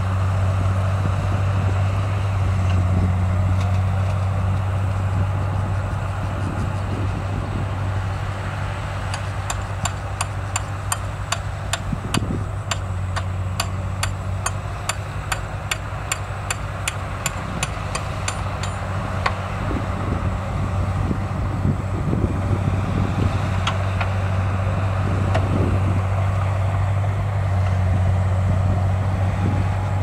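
Komatsu crawler bulldozer's diesel engine running with a steady low drone. From about a third of the way in, for some ten seconds, a run of sharp, evenly spaced clicks comes in, about three a second.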